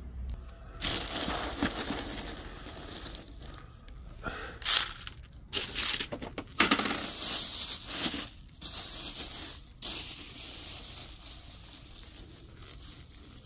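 Plastic bags rustling and crinkling as they are handled, in a series of bursts that die down near the end.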